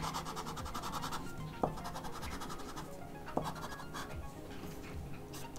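Rembrandt soft pastel stick scratching across brown paper in rapid short strokes, over quiet background music.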